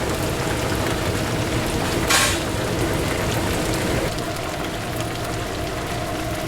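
Oil sizzling steadily as chicken deep-fries, with a brief louder hiss about two seconds in.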